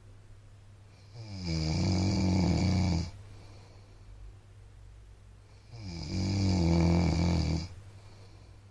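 A man snoring in his sleep: two long snores of about two seconds each, some four and a half seconds apart.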